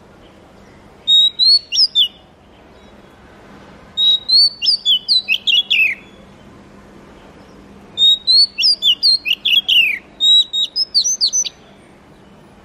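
Oriental magpie-robin singing: four phrases of clear whistled notes, each one to two seconds long, many sliding down in pitch at the end, with short pauses between.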